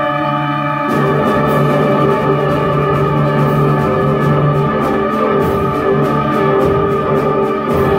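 School concert band playing: a held woodwind chord, then about a second in the full band comes in, with a steady run of sharp taps keeping time.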